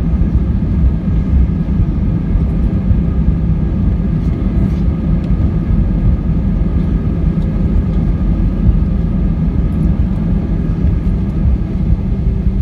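Airbus A320 cabin noise while rolling along the runway after landing: a steady low rumble from the wheels and airframe, with the engines' even hum and several steady whining tones over it.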